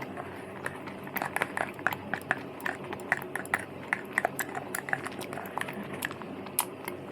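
Close-up eating sounds from chewing cheese tteokbokki: irregular soft mouth clicks and smacks, several a second, over a faint steady hum.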